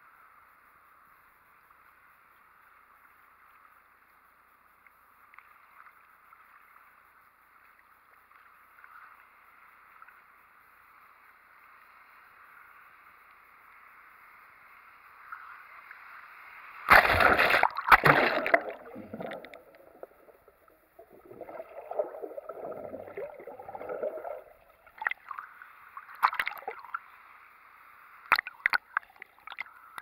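Sea water lapping faintly around a GoPro held at the surface, then about 17 seconds in a breaking wave hits it with a loud rush, followed by several seconds of churning, sloshing water. Near the end a few sharp splashes strike the camera.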